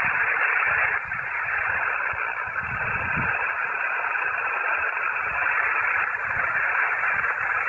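Yaesu FT-891 HF transceiver's speaker putting out steady band static on an open frequency between contacts, a hiss cut off above and below like a voice channel.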